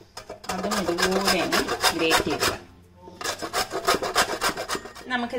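Beetroot being grated on a metal box grater into a glass bowl: two runs of quick scraping strokes with a short pause about halfway.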